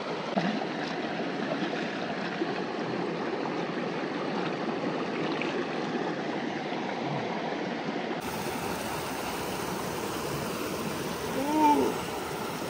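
Mountain stream running steadily, a continuous rush of water. Near the end a single short cry rises and falls in pitch.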